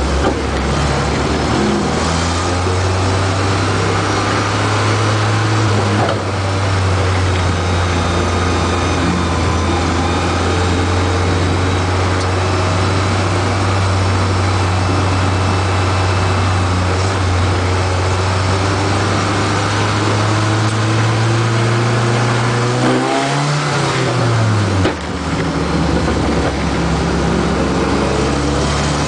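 Race truck engine heard from inside the cab, running at a steady pitch that slowly creeps upward. About 23 seconds in, the revs sweep up briefly and fall away with a short dip in loudness, then the engine settles at a lower pitch.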